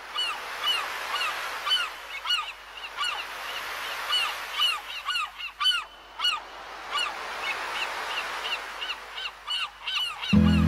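Gulls calling over and over, short rising-and-falling cries several times a second, over a steady wash of noise. Music starts right at the end.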